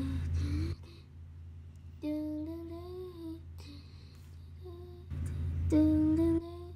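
A child humming a tune to herself in short phrases, with gaps between them.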